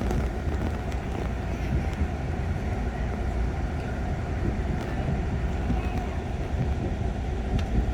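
Mugunghwa passenger train departing, a steady low rumble of the train running on the rails with a few faint clicks.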